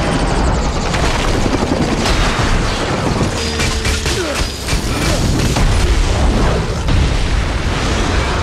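Film action soundtrack of an explosion: a dense, loud boom and rumble with many crashes of falling debris, then fire.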